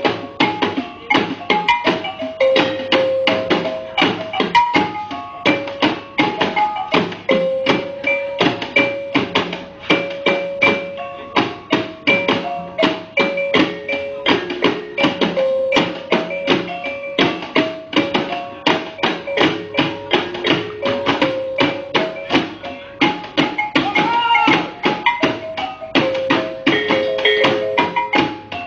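Music for the Moluccan lenso dance: a fast, steady percussion beat under a stepping melody of short held notes.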